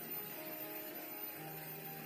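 Background music with steady held notes.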